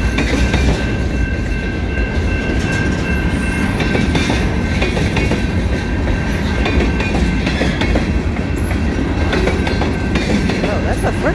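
Freight train's cars rolling past close by: a steady heavy rumble of wheels on rail with clattering over the rail joints, and a thin steady high tone over it that fades out near the end.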